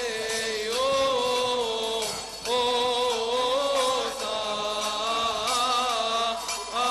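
Liturgical chant of the Coptic Catholic rite: voices sing long held notes in phrases of a few seconds, with a short ornamented run about five seconds in.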